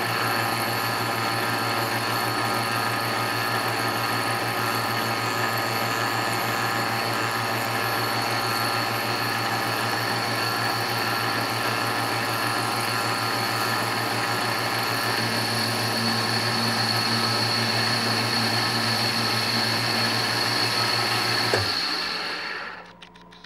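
Stepper-motor-driven rose engine lathe running, with its belt-driven cutter spinning against the turning workpiece: a steady mechanical whine over a low hum. Near the end it is switched off with a click and the whine winds down.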